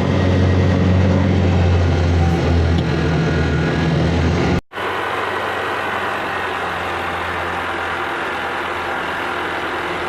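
Honda Activa scooter engine, a single-cylinder four-stroke, driving a small scrap-built boat and running steadily under way. About halfway through the sound cuts out for a moment and comes back slightly quieter.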